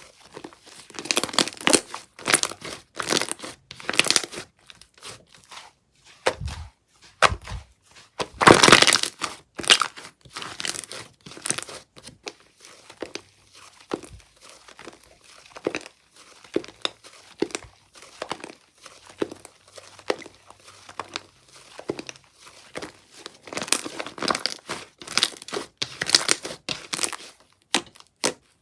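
Slime being squeezed, stretched and poked by hand, giving dense, irregular crackling and popping in clusters, loudest about eight or nine seconds in.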